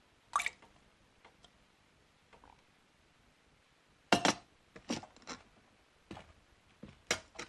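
Scattered clinks of cutlery and crockery at a table: one sharp clink about half a second in, a cluster of clinks about four to five and a half seconds in, and another few near the end.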